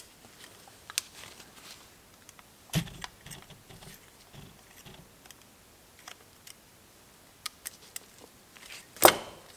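Light metallic clicks and taps of a piston ring being worked by hand onto a 1.9 TDI diesel piston, with a duller knock about three seconds in and a sharp click near the end.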